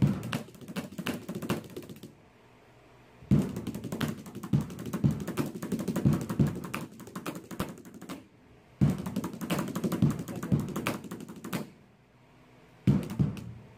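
Two pens drummed on a wooden tabletop as a fast beat (pen tapping), in four bursts of rapid clicking taps with short pauses between them.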